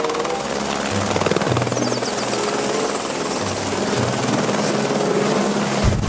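Light helicopter hovering, its rotor giving a rapid, even chop, with music playing underneath.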